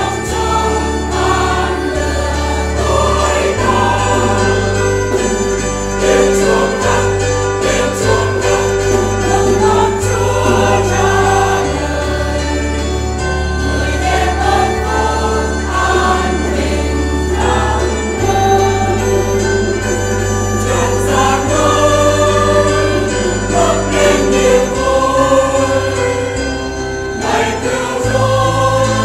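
A church choir sings a Vietnamese Christmas song over instrumental accompaniment, with a steady bass line that changes note every few seconds.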